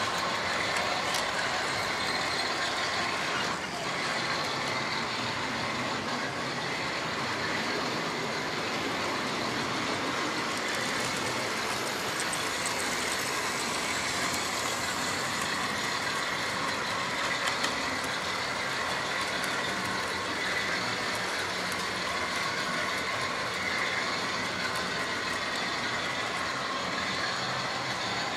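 Model trains running on the layout's track: a steady mechanical running noise from the small electric motors and the wheels on the rails.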